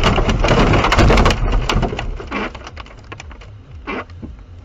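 Car collision: a loud crunching, crashing noise with sharp cracks that dies away after about a second and a half, followed by scattered clicks and knocks.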